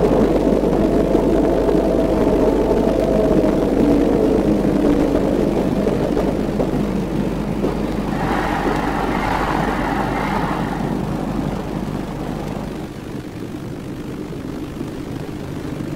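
A train running by with a steady mechanical drone. A higher whine comes in about eight seconds in and fades about three seconds later, and the whole sound dies away toward the end.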